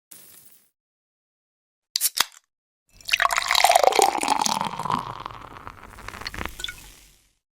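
A brief hiss, a couple of sharp clicks about two seconds in, then liquid pouring for about four seconds, its pitch sweeping as it runs, before it fades out.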